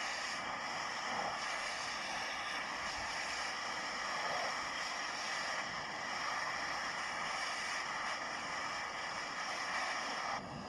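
Neva walk-behind tractor's engine running steadily, then shut off near the end and fading away.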